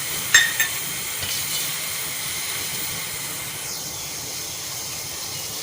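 Steady hiss of a pan of spiced water heating on a gas stove, with one short, ringing clink about a third of a second in.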